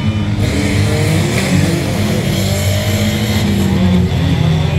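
Several banger-racing cars' engines running and revving at once, their pitches rising and falling.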